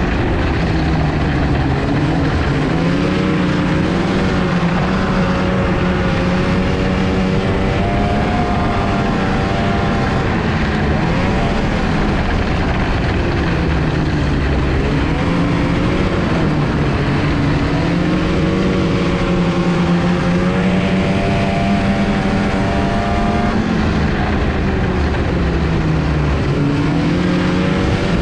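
Snowmobile engine running under way, its pitch dipping and climbing again several times as the throttle eases off and comes back on, over a steady rushing noise.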